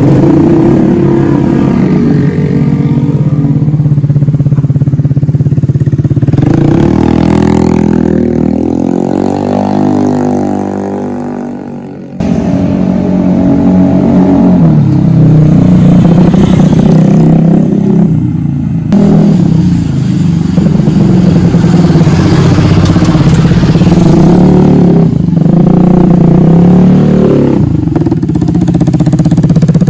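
Vespa Sprint scooter's single-cylinder four-stroke engine, freshly serviced with a ported head and a modified cam, running on a test ride. It rises in pitch as the scooter pulls away and fades, breaks off sharply about twelve seconds in, then runs loud again with the revs rising and falling.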